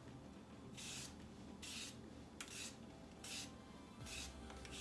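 Vegetable peeler scraping strips of skin off a cucumber: about five short, faint rasping strokes, roughly one every second.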